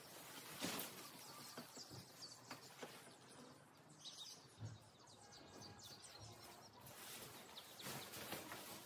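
Quiet rustling and flapping of a tent rainfly being unfolded and handled, with a few faint bird chirps in the background.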